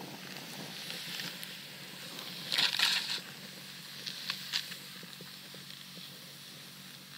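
Snowboard sliding and carving through powder snow: a steady hiss with a louder surge of scraping snow about two and a half seconds in, and a couple of short ticks a little after four seconds.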